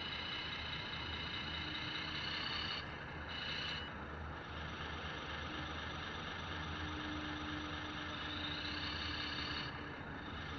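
Radio-controlled model semi-truck running with a steady mechanical hum as it backs slowly to couple its detachable gooseneck onto the lowboy trailer deck.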